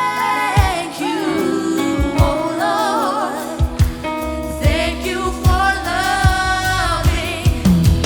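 Gospel song: voices singing held notes with vibrato over a band, with kick-drum thumps and a bass line that comes in stronger about halfway through.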